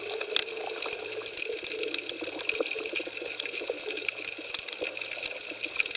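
Hydrophone recording of a coral reef off Bequia: a dense, steady crackle of snapping shrimp over hiss, with scattered short low calls from reef fish.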